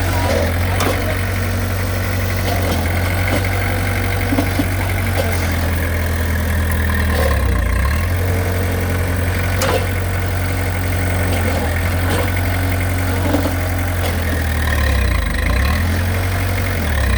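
Heavy machine's engine idling with a steady low hum that dips briefly twice, with a few faint clicks.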